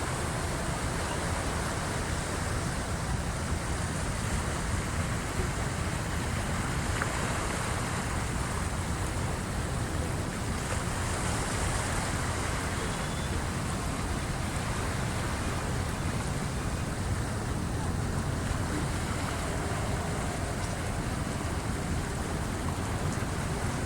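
Seawater of the incoming high tide washing steadily against the shore, an even rushing noise with no distinct breaking crashes.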